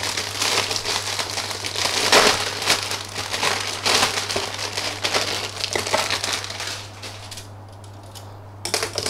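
Clear plastic bag of a model kit's runners crinkling as it is handled and opened. The crinkling is dense for about seven seconds, then quietens, with a brief rustle at the very end.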